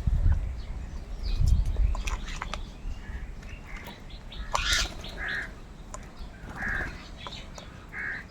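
A flock of crows calling harshly while feeding, caws coming every second or so among short clicks and chirps. A low rumble runs under the first two seconds.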